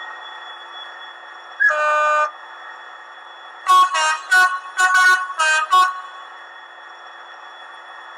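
Hornby HM7000 sound decoder playing its Class 66 diesel sound profile: one horn blast about two seconds in, then a quick run of about six short horn toots, over a steady engine hum.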